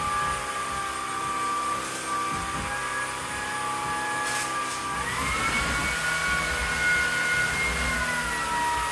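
Shark Stratos cordless stick vacuum running, a steady motor whine with rushing air. About five seconds in the whine rises in pitch, and it falls back near the end.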